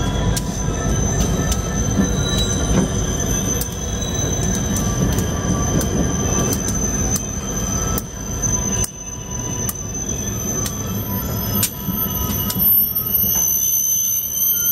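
Several Union Pacific diesel locomotives rolling slowly past with a heavy engine rumble. A high, steady wheel squeal runs over it, with sharp irregular clicks from the wheels on the track. The rumble dips briefly just past the middle.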